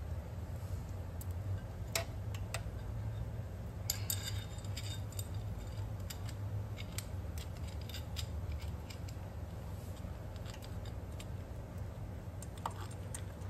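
Roller timing chain for an LS engine clinking and rattling in the hand as it is untangled and fitted over the cam sprocket. The sound comes as scattered metallic clicks over a steady low hum.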